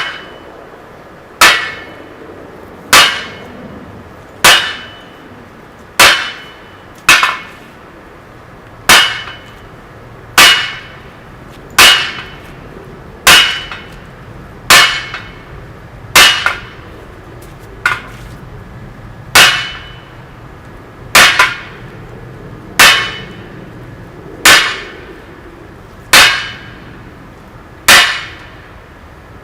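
Hammer blows on a forging of 25 mm square mild steel on an anvil, about one every second and a half, each with a short metallic ring.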